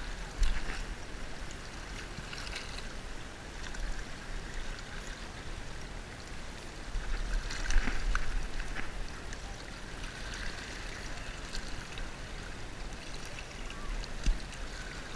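Gentle lapping of shallow seawater against a rocky shore, with low wind rumble on the microphone and a few small knocks, the loudest about eight seconds in.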